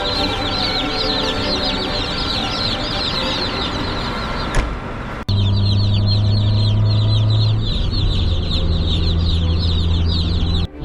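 A large crowd of young chickens peeping continuously, many high-pitched calls overlapping, over a steady low hum that gets louder after an abrupt cut about five seconds in.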